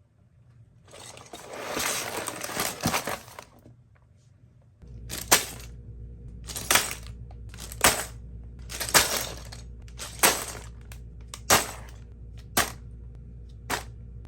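Plastic packaging and LEGO pieces being handled: a long rustle, then a low hum with a run of short, sharp rattles about once a second.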